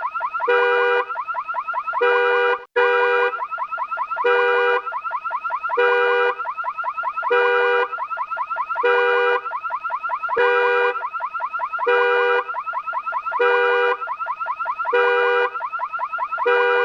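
Car burglar alarm sounding: a fast warbling tone, broken about every second and a half by a short steady blare. It cuts out for an instant about three seconds in.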